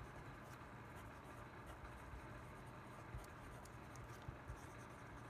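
A pen writing on paper: faint, irregular scratching strokes.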